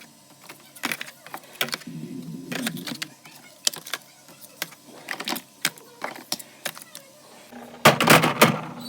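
Repeated sharp clicks and knocks of food containers and items being handled and set down on fridge shelves, with a louder run of clattering knocks about eight seconds in.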